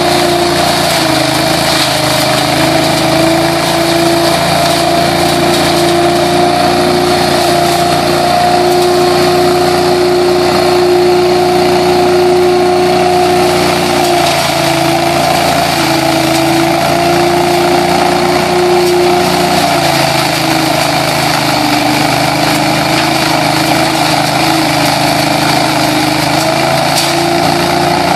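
Billy Goat DL1801VE truck-mounted leaf vacuum, driven by an 18 hp engine, running steadily at full speed while its hose sucks up dry leaves: a loud, even engine-and-fan drone over a rushing of air and leaves. Its pitch dips slightly now and then as the hose takes in more leaves.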